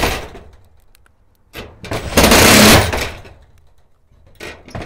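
Cordless Makita 18V impact driver running a screw through a pad bolt into a sheet-steel shed door. It hammers in one run of about a second and a half near the middle, and starts another run just at the end.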